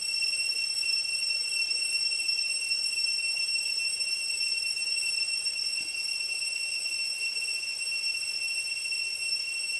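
Cicadas droning in one steady high-pitched tone, over the faint trickle of a shallow stream.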